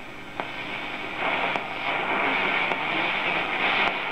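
Restored Lemouzy MYA valve radio tuned between stations: steady hiss and static from its loudspeaker as the dial is turned, growing louder about a second in, with a couple of faint clicks.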